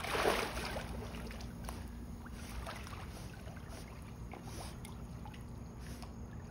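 Pool water splashing as a golden retriever plunges in, loudest at the start, then softer sloshing and lapping as she swims.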